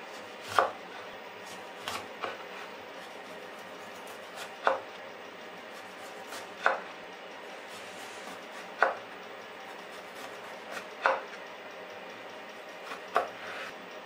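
A santoku knife slicing a lime into rounds on a bamboo cutting board, the blade knocking sharply on the board seven times, about every two seconds.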